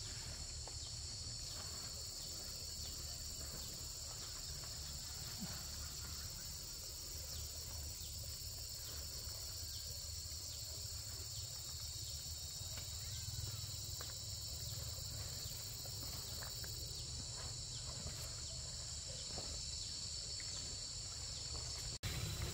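Steady, unbroken chorus of insects such as crickets, high-pitched, over a low steady rumble, with a few faint ticks.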